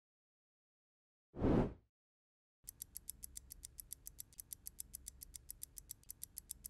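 A short whoosh sound effect, then, from about two and a half seconds in, a fast, even clock-ticking sound effect of about seven ticks a second over a faint low hum.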